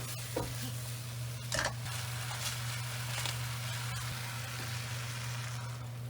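Food sizzling in a frying pan, with a couple of light utensil clicks against the pan, over a steady low hum.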